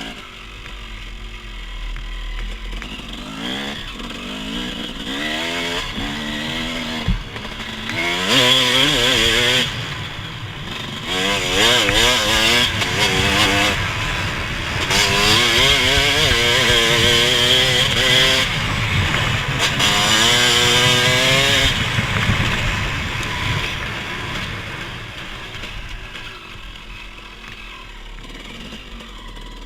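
Off-road vehicle engine under way, revving up and easing off several times as it accelerates, loudest in the middle and dropping away near the end.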